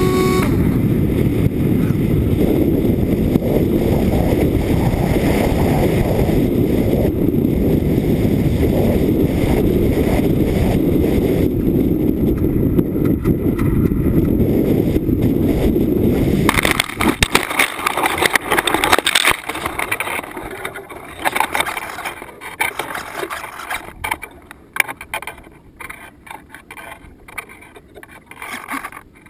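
Steady loud rushing airflow noise on the onboard microphone of an Easystar FPV plane. About two-thirds of the way through it changes abruptly to crackling and scattered clicks that gradually fade away.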